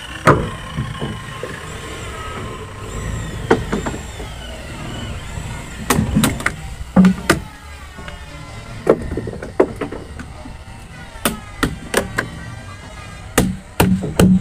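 Hammer striking a wood chisel cutting into a timber boat frame: sharp knocks at uneven intervals, coming more often in the second half.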